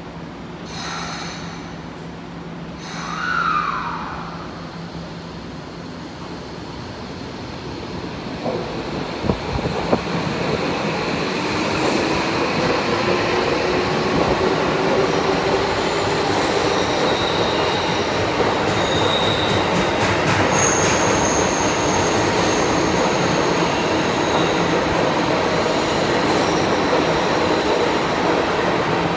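Tokyo Metro 16000 series subway train pulling out of an underground station. A short falling tone comes about three seconds in. The motor whine rises in pitch as the train speeds up, with a run of clicks from the wheels over rail joints, and then the steady rush of the cars passing close by, with brief high squeals from the wheels.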